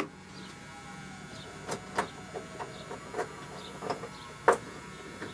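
A small clear plastic parts bin full of loose engine bolts being handled: about six scattered light clicks and taps of plastic and metal, over a faint steady hum.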